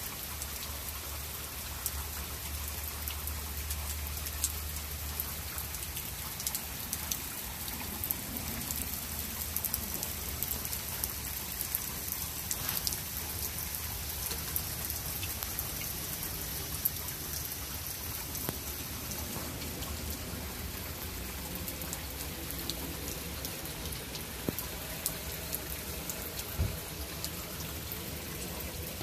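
Steady rain falling, with many separate sharp drop hits throughout. A low rumble sits under it in the first few seconds.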